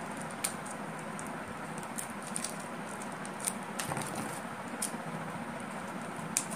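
A small plastic packet being handled and opened by hand: scattered light crinkles and clicks, about seven of them, over a steady background hiss.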